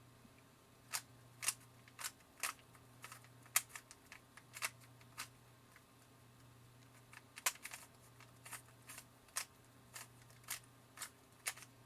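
Stock, unlubricated Rubik's Cube being twisted by hand: irregular sharp clacks as its layers turn, with a short pause around the middle. The loud clacking marks a cheap, unmodified cube that has not been shaved or oiled for speedcubing.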